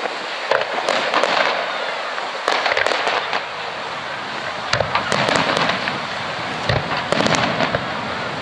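Aerial fireworks display: shells bursting in clusters of sharp bangs about every two seconds over a continuous crackling hiss.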